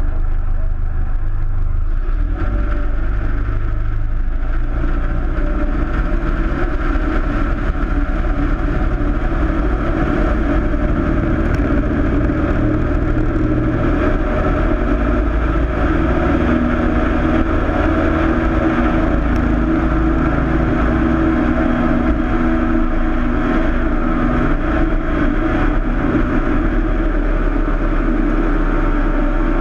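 Cessna 162 Skycatcher's four-cylinder Continental O-200 engine and propeller running steadily, its tones growing stronger about halfway through.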